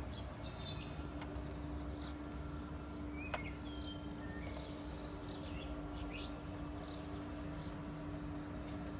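Birds chirping repeatedly in short high calls over a steady low hum, with one sharp click about three seconds in.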